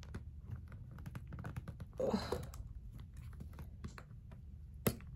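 Small irregular metal clicks and scrapes as a small flathead screwdriver pries under the metal cover of a planner's ring mechanism, with a plastic card against the leather, working the cover loose. A brief vocal sound comes about two seconds in, and a sharper click near the end.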